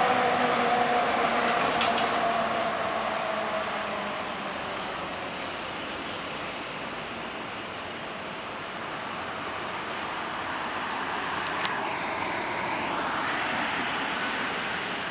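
Ford F-800 catering truck driving past, its engine fading away over the first few seconds into steady airport background noise. About twelve seconds in comes a brief whine that dips and then rises in pitch.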